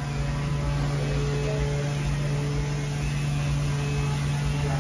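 Steady low machine hum with an uneven rumble underneath, unchanging throughout.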